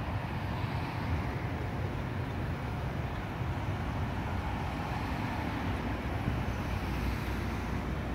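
GVB 15G CAF Urbos tram running along the grassed track and moving away, mixed with steady road traffic noise.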